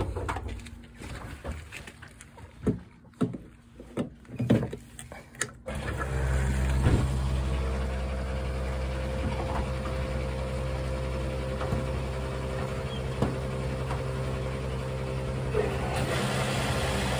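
A few clicks and knocks as a diesel nozzle is lifted from the fuel pump and handled. About six seconds in, the fuel dispenser's pump starts a steady, even hum as diesel is dispensed into the tank.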